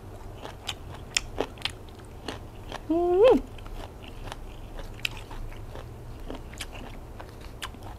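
Close-up mouth sounds of someone chewing food, with many small wet crunching clicks. A short rising hummed 'mm' comes about three seconds in.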